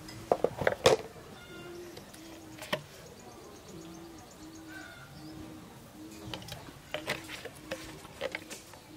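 A dove cooing: the same short low coo repeated steadily about every half second. A few sharp knocks come near the start and again near the end.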